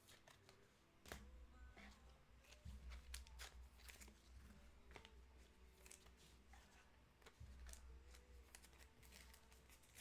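Faint rustling and clicking of trading cards and pack wrappers being handled, with a few soft thumps.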